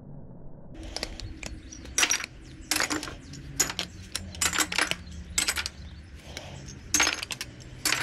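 Metal pieces clinking and clanking against each other, about a dozen sharp clinks with short ringing, irregularly spaced, over a low steady hum.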